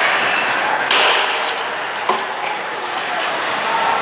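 Ice hockey play on the rink: skates scraping the ice and sticks knocking against the puck and each other, over steady rink noise, with sharp knocks about one and two seconds in.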